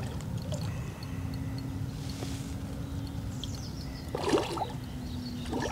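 A hooked common carp splashing at the surface near the landing net, one short splash about four seconds in, over a steady low rumble.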